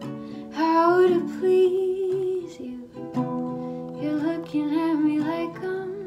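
Background music: an acoustic song of plucked strings with a singing voice.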